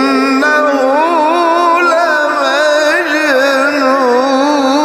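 Melodic Quran recitation: one voice drawing out a single word in a long, wavering, ornamented melisma.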